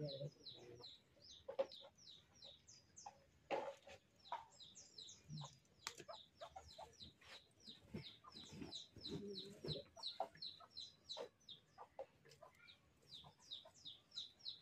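Chickens peeping and clucking in a steady, rapid run of short, high, falling notes, with a few sharp knocks.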